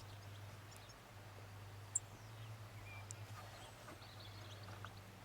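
Faint outdoor ambience with scattered small bird chirps and a steady low hum, broken by one short, sharp click about two seconds in.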